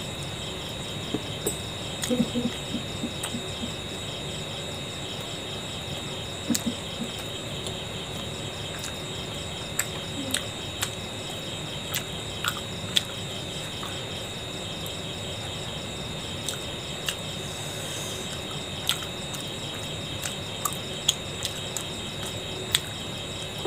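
Crickets trilling steadily in a high, even chorus, with scattered soft clicks and smacks of a person chewing a mouthful of momo.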